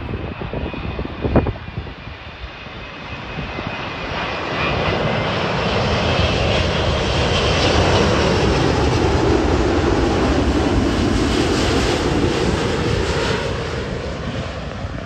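Jet engines of an Emirates Airbus A380 on its landing approach, a roar that builds, holds loud for several seconds as the aircraft passes, then fades. A faint high whine falls slowly in pitch early on.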